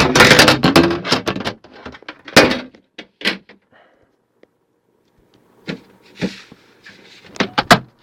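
Handling a desktop PC tower case and its cables: a burst of rattling clatter, then a few separate knocks and thunks, with a quick cluster of knocks near the end.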